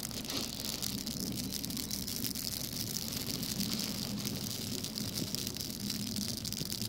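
Dry common reed (Phragmites australis) plumes burning as tinder: a dense, fast, fine crackling of the flames through the fluffy seed heads, with a low steady rumble underneath.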